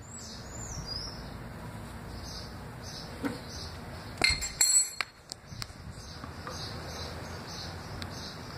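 A few light metallic clinks of a hand tool against engine parts, the loudest cluster about four to five seconds in. A bird chirps briefly near the start over a faint steady background hiss.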